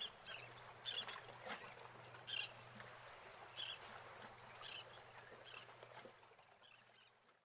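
Short high chirps, roughly one a second, over a faint low steady hum; the sound fades out near the end.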